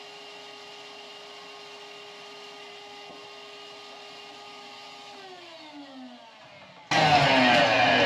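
Vacuum motor running steadily on a hose clamped to a clogged AC condensate drain line, sucking at the blockage. About five seconds in it winds down, falling in pitch, and just before the end a much louder rushing noise starts abruptly.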